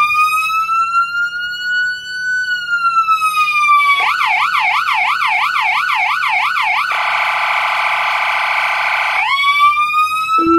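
Feniex Typhoon handheld electronic siren played through a Feniex Triton 100 W speaker. It opens with a slow wail that rises and then falls. About four seconds in it switches to a fast yelp, then to a steady horn tone for a couple of seconds, and near the end it goes back to a rising wail.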